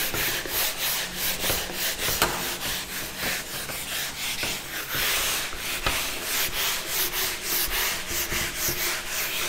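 Handheld whiteboard eraser rubbing back and forth across a whiteboard, wiping off marker writing in quick repeated strokes.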